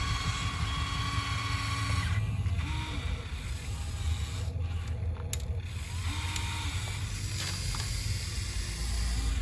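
Small electric motors and gearboxes of radio-controlled model construction machines whirring steadily over a low hum, with several short whines that rise and fall as the motors speed up and slow down.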